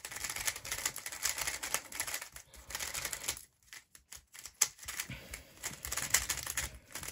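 QiYi Valk 3 Elite magnetic 3x3 speedcube turned quickly by hand: a fast, uneven run of plastic clicks and clacks as the layers turn and snap into place, with a brief pause a little past halfway.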